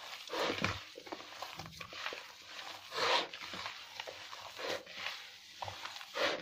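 A hand squeezing and kneading a mashed potato, cabbage and boiled chicken kebab mixture in a plastic bowl: irregular soft squishes, a few of them louder.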